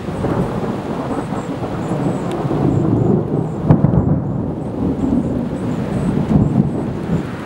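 Thunder from a severe thunderstorm: a long, low rolling rumble that swells toward the middle.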